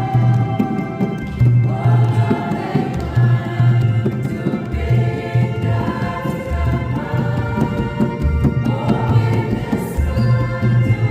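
A choir and congregation singing a hymn, with a steady low beat accompanying it.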